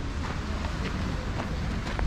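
Wind buffeting the microphone in a steady low rumble, with footsteps on a dirt-and-gravel surface about twice a second.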